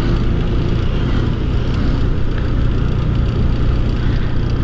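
Motorcycle engine running at a steady cruising speed, with wind and road noise over the rider's camera microphone.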